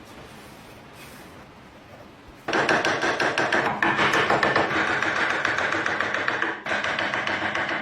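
Rapid, continuous scraping on the metal of a rusty lock, starting suddenly about two and a half seconds in, with a brief break near the end.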